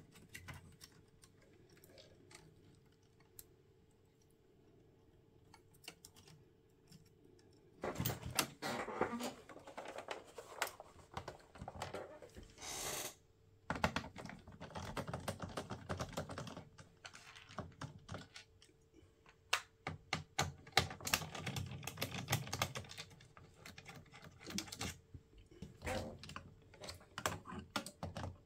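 Clicking, tapping and rattling of the plastic and metal parts of an opened Sharp GF-9494 boombox being taken apart by hand, with a screwdriver working its screws. Sparse and faint at first, then busy from about eight seconds in.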